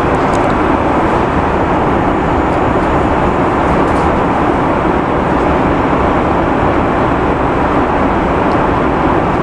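Steady cabin noise of an Airbus A330 in flight: a dense, even rush of airflow and engine noise with no change in level.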